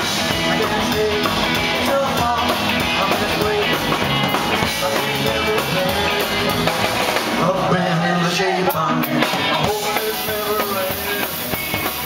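Rock and roll band playing live: drums and a hollow-body electric guitar, with a singer at the microphone.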